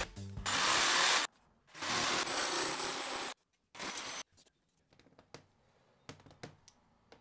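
Bosch cordless jigsaw sawing through a cedar board in three short bursts, the longest about a second and a half. After the saw stops come a few light clicks and taps as a plastic outlet strip is handled and fitted into the cut.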